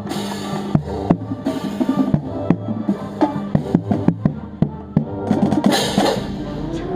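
High school marching band playing: the drumline's bass drum is close and prominent, with rapid drum strokes over held brass chords. Two bright crashing swells come, one at the start and one near the end.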